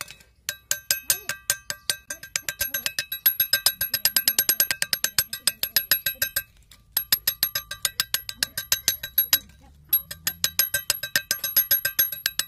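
Steel spanner rapidly tapping a brass sprinkler nozzle head, several ringing metallic strikes a second, with two short pauses. The tapping loosens the nozzle's seized threads so that it can be unscrewed.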